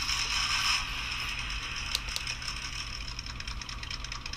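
Simulated engine idle sound from the D4L radio's sound module, played through a tiny speaker in the micro RC truck's 3D-printed speaker box. It is steady and thin, slightly louder for the first second, with a couple of faint clicks about two seconds in.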